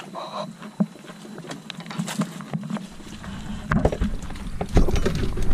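Rain pattering with scattered small taps and knocks. A low rumble joins about three seconds in and grows louder.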